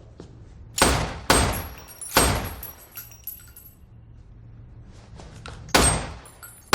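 Handgun shots: three in quick succession about a second in, then a pause and a fourth shot near the end, each with a short echoing tail.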